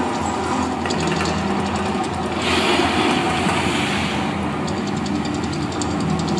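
Mirage volcano show: a deep steady rumble with low droning tones, and about two and a half seconds in a rushing whoosh of a gas fireball flaring up over the rocks, lasting about two seconds.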